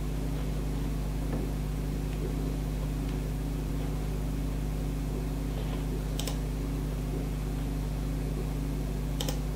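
Old desktop computer running with a steady low hum. Two brief mouse clicks, one about six seconds in and one near the end.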